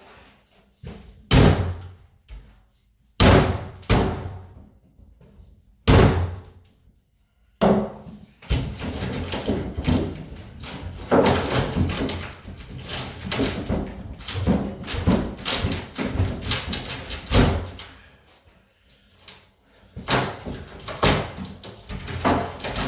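Heavy blows on a solidly built wooden cabinet being broken apart: three single loud bangs a couple of seconds apart, then, about eight seconds in, a long stretch of rapid banging and clattering.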